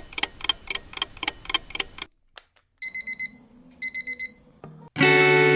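Electronic alarm beeping in two short bursts of rapid high beeps, after a run of quick, even ticks. Music with guitar comes in near the end.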